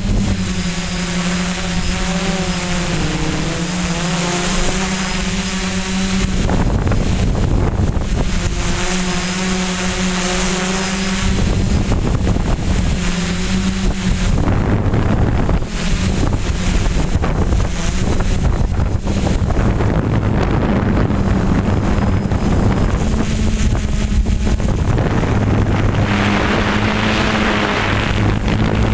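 DJI F450 quadcopter's four electric motors and propellers buzzing, heard up close from its onboard GoPro. The pitch shifts up and down as the motors hold the craft against turbulent wind, with wind rushing on the microphone.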